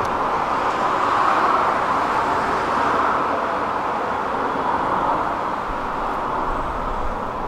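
Steady traffic noise, swelling slightly about a second in and easing toward the end.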